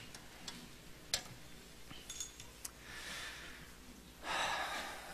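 Faint scattered clicks and shuffling of a congregation settling back onto chairs, then an audible breath into a headset microphone near the end.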